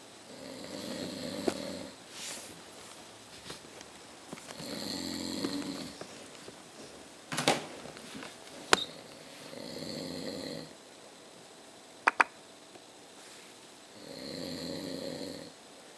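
An older man snoring in his sleep: four long snores, one every four to five seconds. A few short sharp clicks fall between them.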